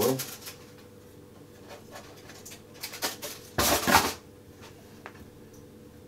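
Aluminium kitchen foil being cut with scissors and handled: a few light clicks and crinkles, then one loud, crisp crinkle of foil lasting about half a second, a little after three and a half seconds in.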